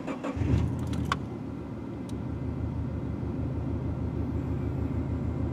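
2004 Subaru WRX's turbocharged flat-four engine, already warm, starting: a brief crank with a few clicks, catching about half a second in, then settling into a steady idle at about 760 rpm, heard from inside the cabin.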